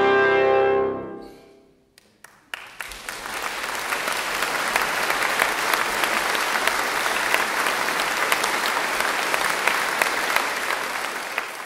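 A brass ensemble of trumpets and trombones ends on a held final chord that fades away in the hall's reverberation. After a moment of quiet, a few single claps come and then an audience breaks into steady applause.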